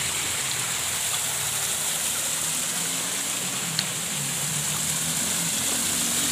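Shallow stream water running over rocks, a steady hiss. A low, wavering hum grows in the second half, and there is one sharp click about four seconds in.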